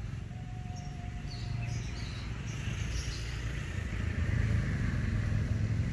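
A low, steady engine hum that grows louder, with faint bird chirps in the first couple of seconds.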